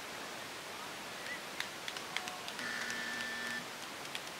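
Paintball markers firing: scattered sharp pops over a steady hiss. A steady tone is held for about a second around the middle.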